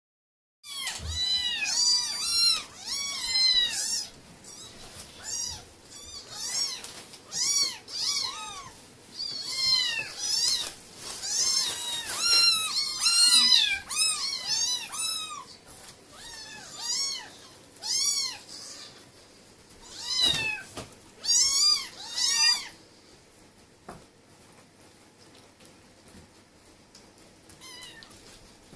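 A litter of young kittens mewing hungrily for food, many high, arching mews overlapping one after another. The mewing thins out after about twenty seconds, once the kittens are at their food dishes.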